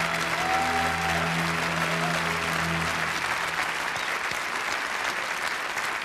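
Large theatre audience applauding steadily, over the final held chord of the act's closing music, which dies away about halfway through.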